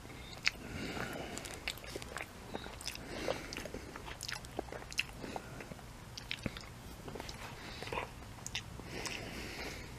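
Close-up mouth sounds of a person chewing and biting into a chicken nugget, with irregular wet clicks and crunches.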